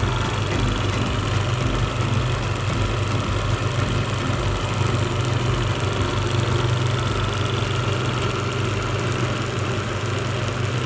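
Table fan motor running steadily with a strong low hum.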